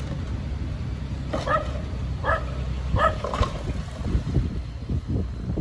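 Small bulldozer's diesel engine running with a steady low rumble, and four short high-pitched yelps or squeaks over it, about a second apart.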